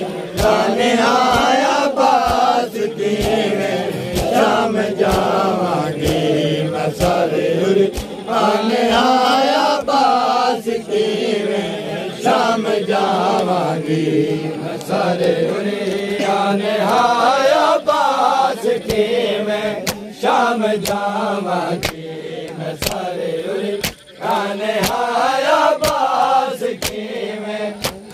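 A crowd of men chanting a Muharram noha in unison in long phrases. Sharp slaps of hands on chests (matam) keep time at roughly one a second.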